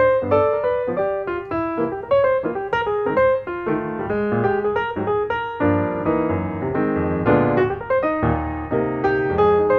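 Background piano music: a steady run of struck piano notes with chords underneath.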